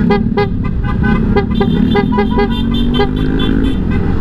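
Motorcycle horns tapped in many quick short beeps, a second, higher-pitched horn joining about halfway, over steady engine and wind noise; riders honking to greet each other as a sign of respect while passing.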